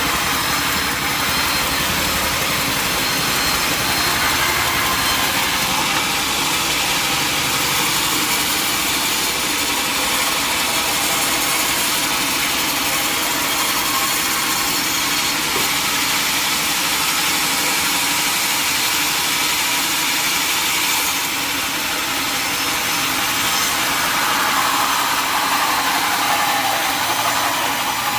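Sawmill saw cutting teak wood: a loud, steady, rushing machine noise, with a pitch that sags downward near the end.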